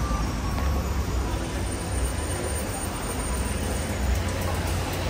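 Chevrolet Cruze 1.8 petrol engine running steadily with a low, even rumble, carrying the abnormal noise that the mechanic traces to the water pump.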